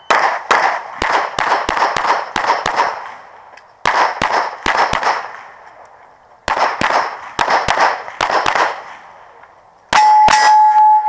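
Pistol shots fired rapidly during a USPSA practical shooting stage: three quick strings of several shots a second, with about a second's pause between strings. Near the end come two more shots, then a loud steady ringing tone.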